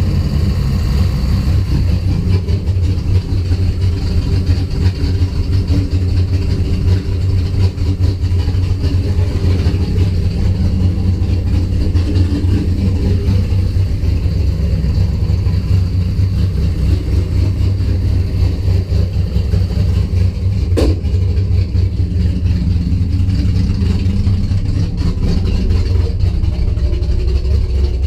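Car engine with distributor ignition idling roughly and unevenly, with one sharp pop about three quarters of the way through.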